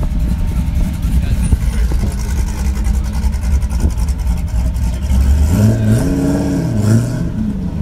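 A car engine idling with a low rumble, then revved once near the end, its pitch climbing and dropping back to idle.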